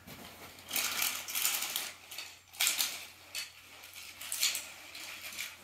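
Toy cars clinking and clattering against each other as they are picked up from a pile and set down, in several short bursts.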